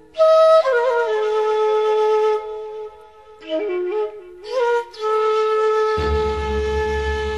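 Background music: a solo flute playing long held notes with small slides in pitch between them. A low drone joins about six seconds in.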